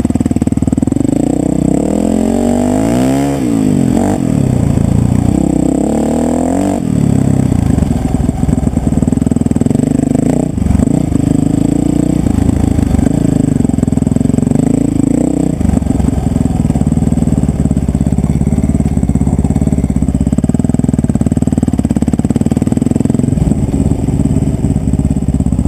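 Enduro dirt bike engine under way on a trail, its revs rising and falling several times in the first few seconds, then pulling at a fairly steady pitch with a few brief dips.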